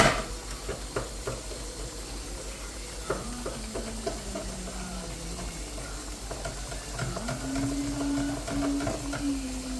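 Kitchen handling sounds over a pot of cook-up rice at a slow boil: a sharp knock at the start, then scattered clinks and stirring with a light sizzle. A steady low tone sounds twice, for a couple of seconds each time.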